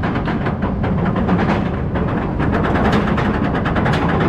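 Roller coaster train climbing Kumba's chain lift hill: a fast, even run of clacks from the lift chain and anti-rollback over a steady low rumble.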